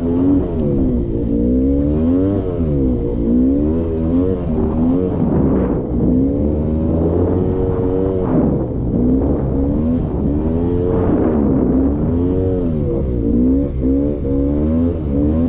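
Polaris Scrambler 400's single-cylinder two-stroke engine under way, its revs rising and falling over and over as the throttle is worked.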